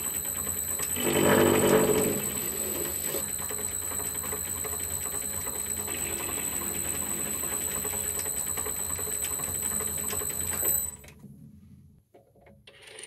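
Colchester Student metal lathe running with its four-jaw chuck spinning, with a steady high-pitched whine, taking a light facing cut on the head of a steel bolt. The cut is louder for about a second near the start. The lathe is switched off about eleven seconds in and goes quiet, followed by a few faint clicks.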